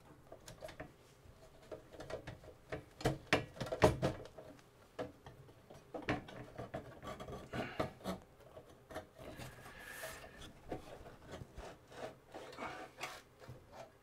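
Computer hardware being handled on a desk: scattered clicks, knocks and rubbing, loudest about three to four seconds in.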